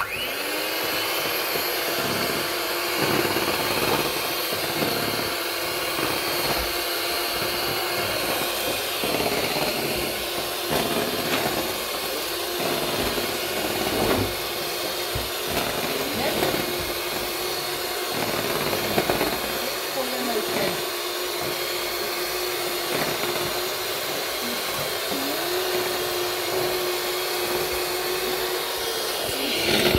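Electric hand mixer running steadily on its lowest speed setting, its beaters whisking pancake batter in a plastic bowl, with a constant motor whine.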